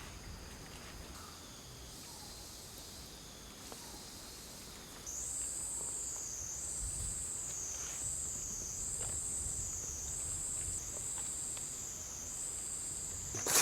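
A forest insect's high, continuous buzzing trill starts about five seconds in over quieter background insect hum. Its pitch wavers up and down a little more than once a second.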